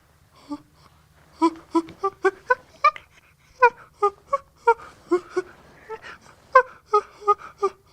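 Chimpanzee giving a rapid, irregular series of short, sharp calls, about two to three a second, some wavering in pitch.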